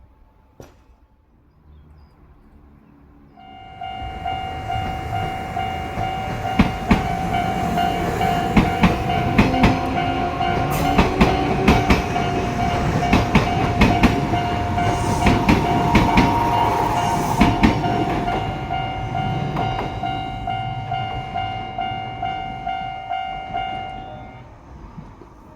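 Japanese level-crossing alarm ringing a steady, repeated electronic tone while a Kintetsu train passes over the crossing. The wheels clatter over the rail joints in a rapid run of knocks through the middle. The alarm cuts off near the end as the train clears.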